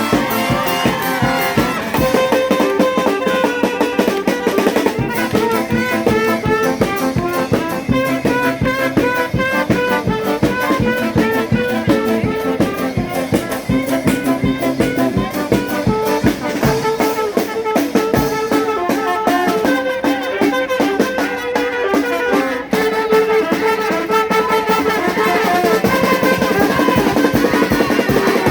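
Charanga street band playing a lively tune: brass and saxophones carry the melody over a steady drumbeat.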